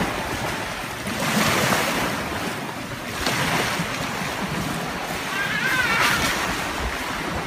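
Small sea waves washing against a rocky shore, the noise swelling and easing every couple of seconds.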